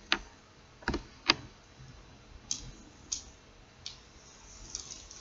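Runes clicking against one another as they are handled and drawn: six or so sharp separate clicks, the loudest a little over a second in, then a quicker run of small clicks near the end.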